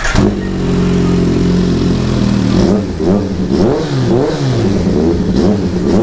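Kawasaki Z H2's supercharged inline-four idling through an Akrapovič slip-on exhaust canister, blipped several times in the middle so that the revs rise and fall, then settling back to idle. The exhaust has a crisp note.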